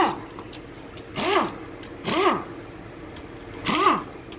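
A handheld power tool run in four short bursts, each spinning up and winding back down with a hiss, as fasteners are worked loose during an engine teardown.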